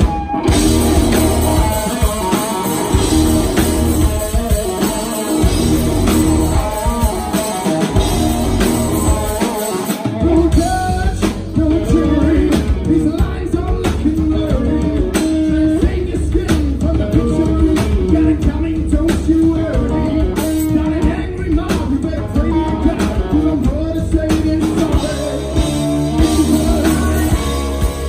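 Live rock band playing: electric guitars over a drum kit, with a voice singing. The drums settle into a steady driving beat about ten seconds in.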